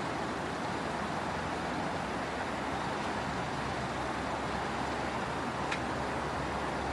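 Steady rushing background noise with no distinct source, with one faint tick a little over five seconds in.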